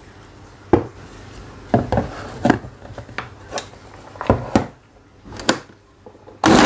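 Plastic clunks and clicks as a blender jar is handled, its blade base fitted and the jar set on the motor base, about ten knocks in all. Near the end the electric blender motor switches on with a sudden loud, steady whirr, grinding shallots, garlic, turmeric, ginger and candlenuts with a little water into a spice paste.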